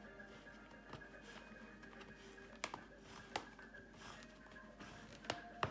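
A teething miniature Australian Shepherd puppy chewing and rummaging among toys in a fabric toy bin. It makes faint rustling with a few sharp clicks, two near the middle and two near the end.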